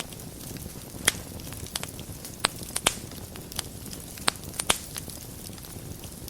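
Wood fire burning in a fireplace: a steady low rumble of flames with soft crackling and about half a dozen sharp pops of burning wood.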